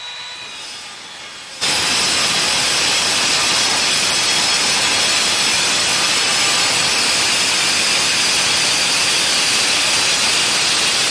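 Evolution crosscut saw with a Rage metal-cutting blade sawing through a 4 mm steel door blank. The blade's harsh, steady hiss in the steel starts abruptly about a second and a half in and carries on at a loud, even level.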